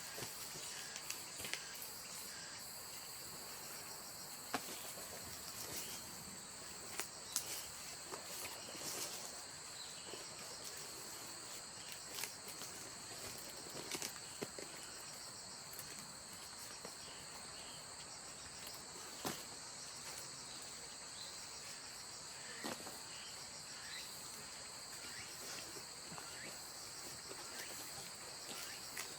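Insects chirring steadily in two high, even bands, with scattered sharp clicks and rustles over the top.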